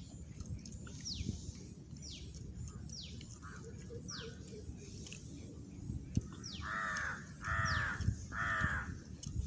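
Crows cawing three times in quick succession near the end, while a small bird repeats a high whistled note that falls in pitch, about once a second.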